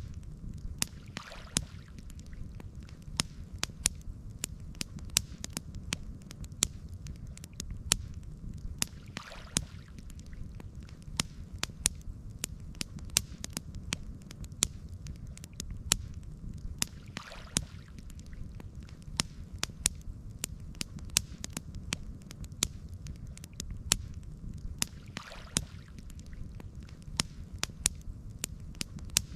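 Campfire crackling: frequent sharp pops of burning wood over a steady low rumble, with a soft hissing swell about every eight seconds.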